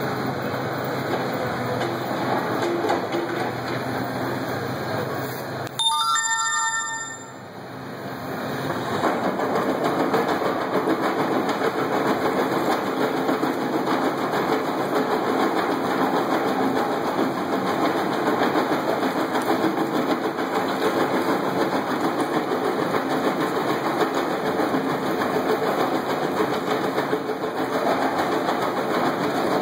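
Excavator running and working its rock-crusher attachment: a steady, dense mechanical clatter. The noise breaks off briefly about six seconds in, with a short tonal sound, then carries on.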